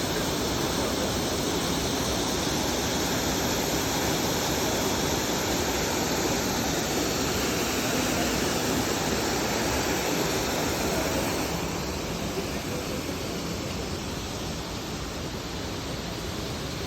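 Waterfall rushing: a steady, even roar of falling water, a little quieter from about twelve seconds in.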